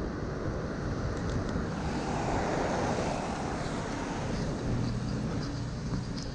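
Wet city street at night: a vehicle passes on rain-soaked asphalt, its tyre hiss swelling in the middle and fading, then a low steady engine hum sets in.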